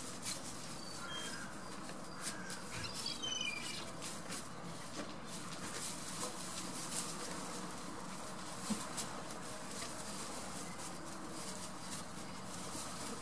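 Small birds chirping briefly a few times in the first few seconds, over a steady low background. Light rustling and ticking throughout from goat kids stepping about on straw.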